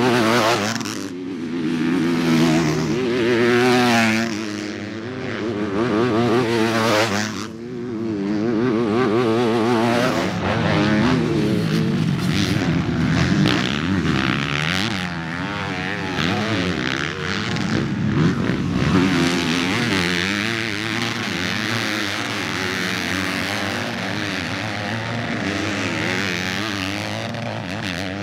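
Several motocross dirt bikes riding the practice track, their engines revving up and dropping back again and again as they accelerate and shift, with more than one bike heard at once.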